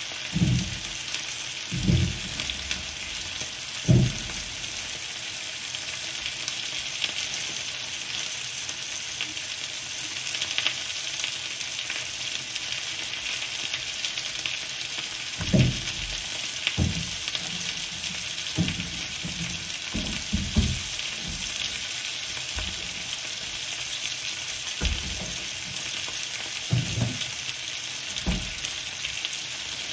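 Groceries being put away: a string of short, dull knocks and thuds as packs of plastic water bottles and carrier bags are set down and stowed in a kitchen cupboard and its door is shut. All of it sits over a steady hiss.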